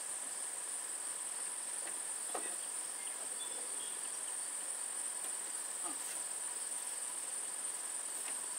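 Steady, high-pitched chorus of trilling insects, unbroken throughout, with a few faint knocks now and then.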